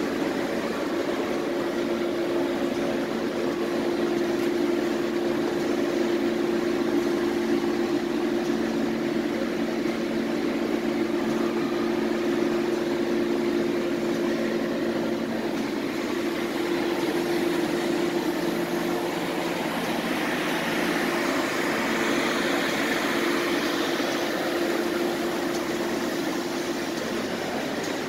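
Steady hum of running machinery with one strong constant tone and a few weaker ones, with a little more hiss from about twenty seconds in.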